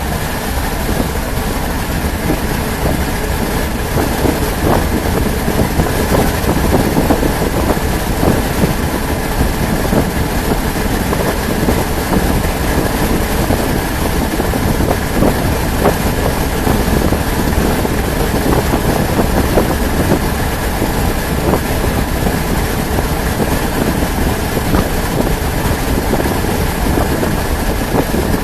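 Steady, loud rumble of a vehicle in motion, an even road and engine noise with no distinct events.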